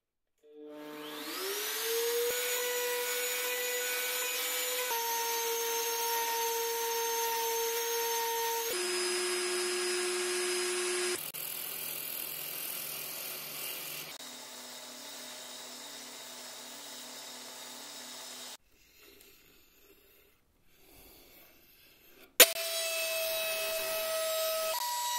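Workshop power-tool motors in short edited clips: a router table motor spins up with a rising whine and runs steadily, then a wood lathe runs while a wooden wheel is turned. After a brief near-quiet stretch comes one sharp click, and the router table motor runs steadily again.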